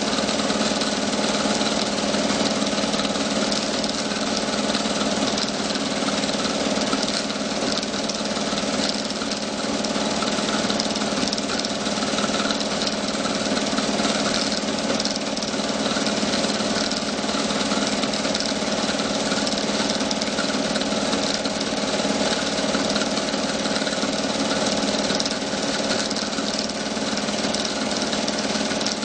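Super 8 film projector running steadily, its motor and shutter making a constant mechanical whir with a low hum.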